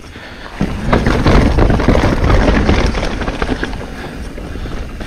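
Mountain bike riding fast down a dirt singletrack: tyre rumble and rattling of the bike, with wind on the microphone. It starts with a sudden thump about half a second in as the bike lands off a small drop.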